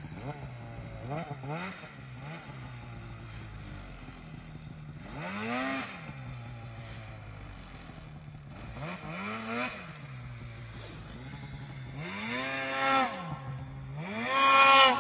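2014 Polaris RMK 800 snowmobile's two-stroke engine revving up and falling back in several throttle bursts between stretches of steady running, the loudest rev near the end.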